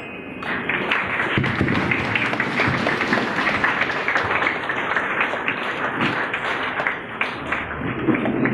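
Audience applauding: many hands clapping steadily, starting just after the beginning.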